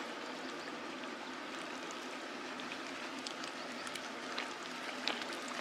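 Steady rush of flowing river water, with a few faint splashes of someone moving in a pool.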